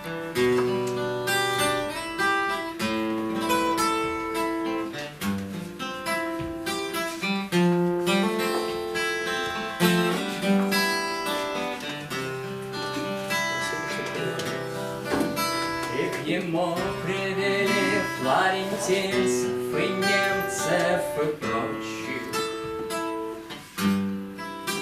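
Acoustic guitar playing an instrumental interlude between verses: a picked melody of single notes over sustained bass notes.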